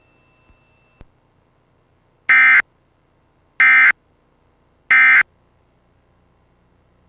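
Emergency Alert System digital data tones: three identical short, buzzy bursts about a second apart. This is the end-of-message (EOM) code that closes the alert.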